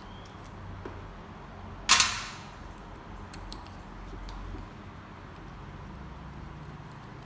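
A single sharp crack about two seconds in as a tight bolt on a common-rail high-pressure fuel pump breaks loose under a wrench, with a few faint small clicks around it.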